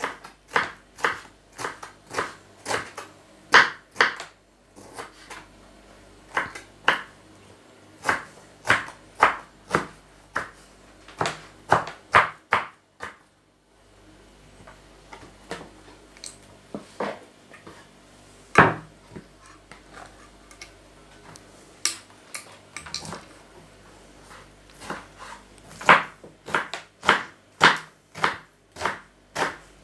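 Kitchen knife chopping sauerkraut leaves on a wooden cutting board: sharp knocks of the blade on the board in uneven runs of about two strokes a second. There is a short break about thirteen seconds in, and the strokes come sparser for a while after it.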